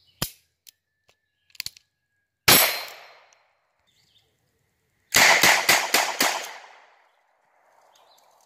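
Ruger Wrangler .22 LR single-action revolver fired from the hip. A few sharp clicks come first, then one shot, then five shots in quick succession at about four a second.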